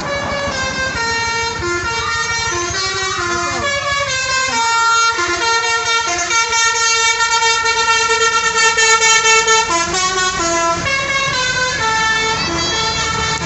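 Bus telolet horn, a multi-tone musical air horn, playing a tune of short stepped notes, then holding one long chord for about four seconds before more short notes.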